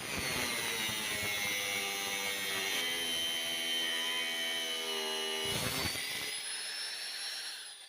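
Electric power tool running under load on steel: a steady whine whose pitch drifts and shifts partway through, stopping just before the end.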